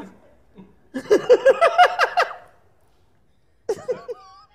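A man laughing out loud: a run of quick ha-ha bursts about a second in, then a shorter giggling burst near the end.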